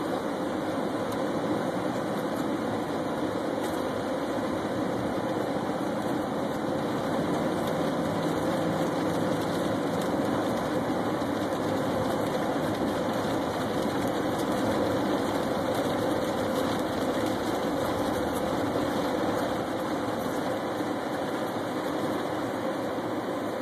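Steady road and engine noise heard inside the cabin of a moving car, an even rumbling hiss with no change in level.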